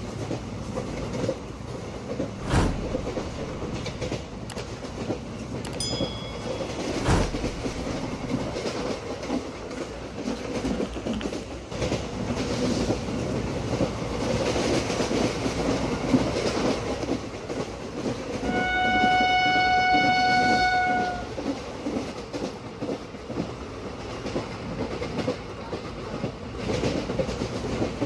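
Train running sound effect for a model WAP7 electric locomotive and ICF coaches: steady wheel rumble and clickety-clack over rail joints, with a few sharp knocks. One horn blast, about two and a half seconds long, sounds about two-thirds of the way through and is the loudest thing here.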